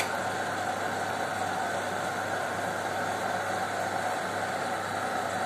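Chicken adobo simmering in a wok of sauce on a gas stove: a steady sizzle and bubbling over a constant low hum.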